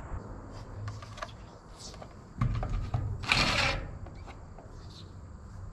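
Cordless impact driver running in one short burst, about half a second, a little past halfway, pressed up against steel roof sheeting; before it, a few faint clicks of handling.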